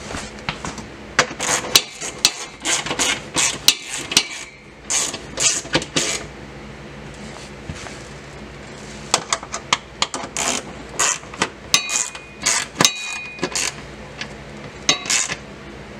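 Hand ratchet clicking in short runs, with metallic clinks from the socket and tools, as heat-shield bolts are snugged down lightly by hand. A few clinks ring briefly near the end.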